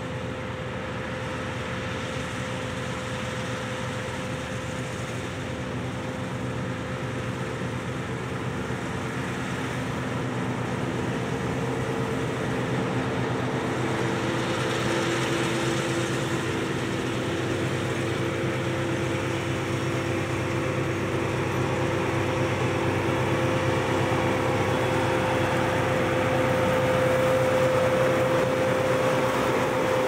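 Claas Lexion 670 combine harvester cutting barley, its engine and threshing machinery running with a steady hum of several held tones over a rushing noise. It grows steadily louder as the machine comes close.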